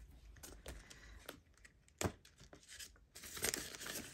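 Paper and plastic rustling and crinkling as cash envelopes and banknotes are handled, with one sharp tap about two seconds in and busier rustling over the last second.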